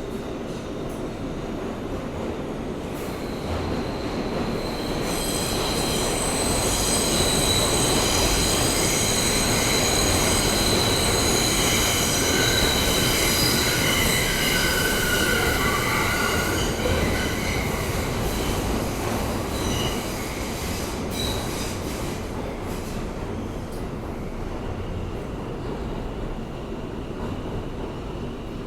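R160A-2 subway car running on the rails, heard from inside the car: a steady rumble of wheels and motors, with a high-pitched wheel squeal that sets in about 3 seconds in and fades out about 17 seconds in.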